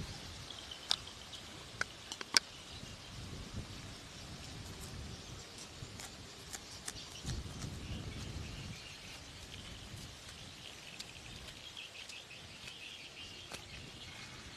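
Outdoor ambience by a rice field: birds chirping, with gusts of wind rumbling on the microphone and a few sharp clicks in the first few seconds.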